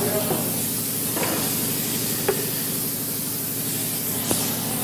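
Steady hissing noise over a low, even machine hum, with a few faint ticks at about one, two and four seconds in.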